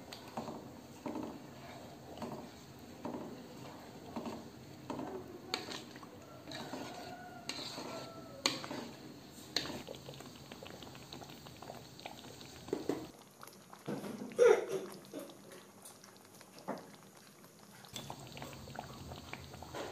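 Thick chili sauce simmering in a metal wok, plopping and popping as it bubbles, with a few sharp taps of the spatula against the wok. About two-thirds of the way in comes a short rising squeal, the loudest sound here.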